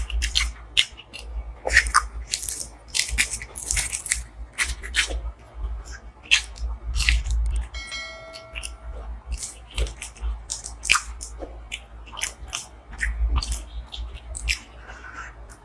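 Close-miked chewing and biting of food, with many short, crisp crunches throughout. A brief ringing tone sounds about eight seconds in.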